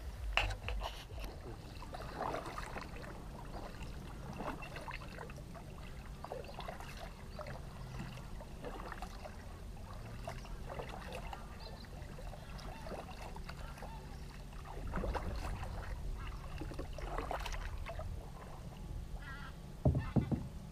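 Kayak paddles dipping into calm water, with drips and light splashes and the odd knock against the hull. Near the end a few short calls from waterfowl, such as geese or ducks, come in.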